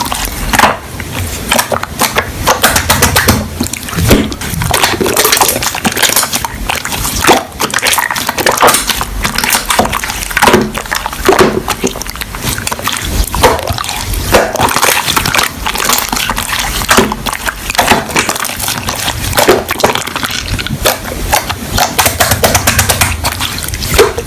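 Slime being squished, poked and stretched by hand, giving a steady stream of wet clicks, pops and crackles.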